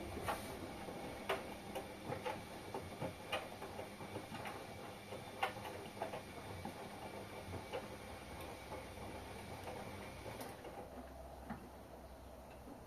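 Front-loading washing machine tumbling a load, with irregular clicks and knocks from the drum over a low running hum. The clicks thin out and the hum drops about ten seconds in.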